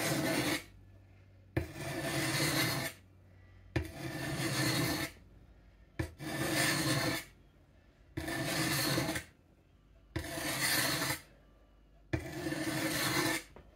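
Steel lopper blade being sharpened on a 600-grit sharpening stone: six slow push strokes about two seconds apart. Each stroke starts with a light click as the blade meets the stone, followed by a rasping scrape of about a second.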